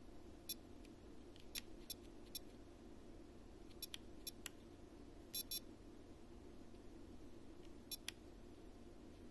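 Eachine PRO58 receiver module being worked through its menus with the selector wheel: about a dozen short, sharp ticks in uneven groups, some in quick pairs, each marking an input on the wheel.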